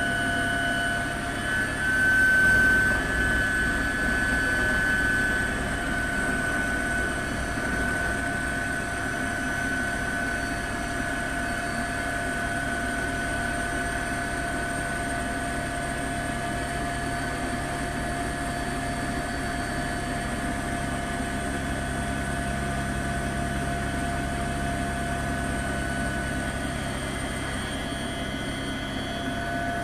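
Helicopter turbine and rotor noise heard from aboard the aircraft: a steady whine over a low rumble, briefly louder a couple of seconds in.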